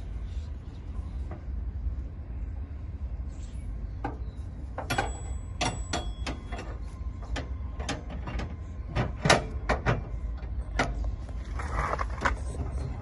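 Metal parts of a riding mower's shifter being handled and fitted: a run of clicks and knocks, one with a brief metallic ring, over a steady low rumble.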